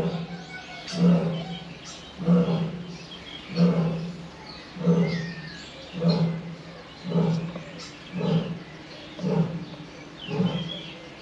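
Lion roaring: a long series of deep grunts about one a second, some ten of them, slowly growing weaker, typical of the closing part of a roaring bout. Birds chirp faintly in the background.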